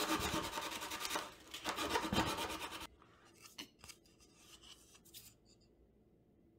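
Sandpaper rubbed in quick back-and-forth strokes along the edge of a routed recess in an acrylic portlight lens, smoothing the cut; it stops suddenly about three seconds in, leaving only a few faint handling clicks.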